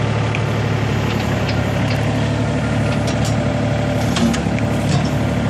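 John Deere 35C mini excavator's diesel engine running steadily.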